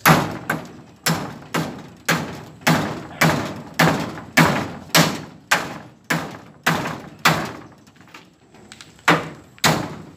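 Hammer driving nails through a corrugated galvanized iron sheet into its wooden frame: steady, ringing blows about two a second, a short pause, then two more blows near the end.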